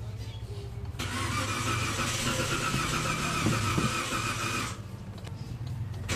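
Toyota Avanza's starter motor cranking the engine with a steady whir for almost four seconds without the engine catching, then cranking again near the end: a crank-but-no-start fault.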